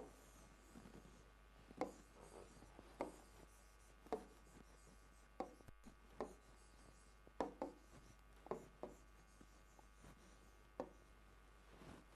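Pen writing on a board: a series of short scratching strokes and taps, about one a second, over a quiet room.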